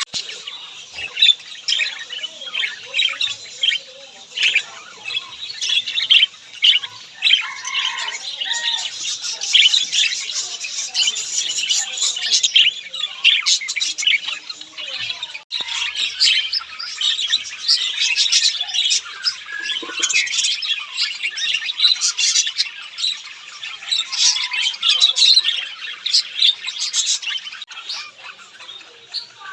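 Many small pet birds chirping and squawking over one another in a dense, unbroken chatter.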